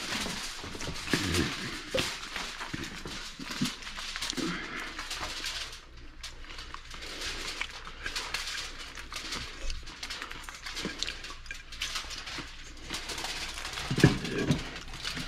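Aluminium foil crinkling and rustling as it is wrapped around a small cake pan, with scattered light clicks and knocks from handling.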